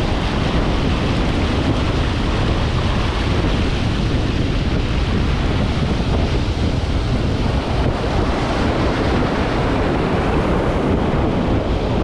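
Ocean surf breaking and washing around the angler's legs, with wind buffeting the microphone: a loud, steady rush of noise, heaviest in the low end.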